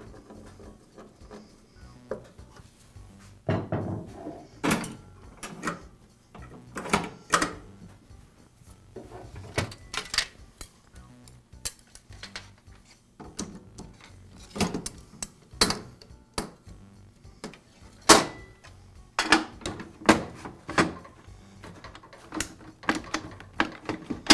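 Sharp metal clicks, knocks and rattles of a Makita table saw's blade guard and rip fence being fitted and locked into place, with soft background music.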